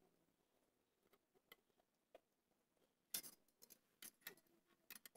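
Faint, scattered clicks and light metallic taps from a small-engine carburetor and its linkage being handled and worked loose by hand. The clicks come closer together about three seconds in.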